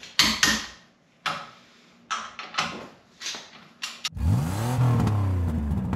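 About seven short, sharp bursts of tool noise from work on a wheel hub, then, about four seconds in, a car engine revving: a loud sustained note that swells up and down in pitch.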